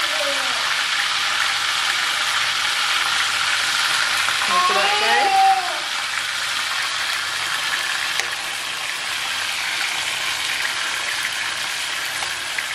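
Seasoned goat meat frying in oil in a stainless steel pan: a steady sizzle, with a spoon stirring through the meat in the second half. About five seconds in, a short voice rises and falls briefly.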